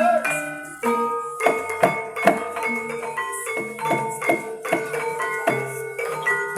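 Gamelan accompaniment for ebeg (Banyumas horse dance): tuned mallet-struck instruments play a repeating melody over drum strokes. The playing thins briefly about a second in, then resumes fuller.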